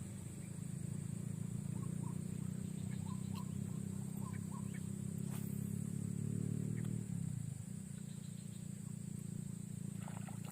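A motor engine running steadily, then fading out about seven seconds in, over a steady high insect drone and a few faint chirps.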